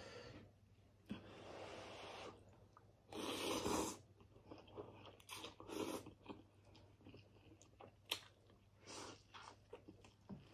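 Quiet close-up eating sounds: chewing and slurping birria ramen noodles, then biting into a quesabirria taco near the end, in a string of short noisy bursts.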